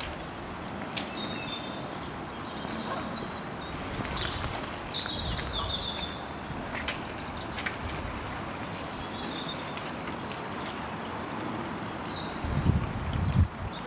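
Small birds chirping and twittering repeatedly over a steady outdoor hiss, with low rumbling bumps near the end.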